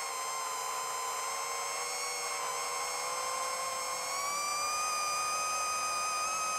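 Brushless motors (Racerstar 2514, 1498KV) spinning 7-inch HQProp 7040 propellers on an iFlight XL8 V3 FPV drone in flight, giving a steady high whine. About four seconds in, the pitch and loudness rise a little as the motors speed up.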